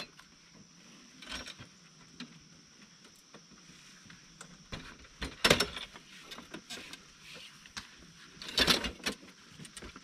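Folding table with a plastic top and metal legs being unfolded and set upright: scattered clanks and knocks of the frame, the loudest about halfway through and another cluster near the end. A steady high insect drone runs underneath.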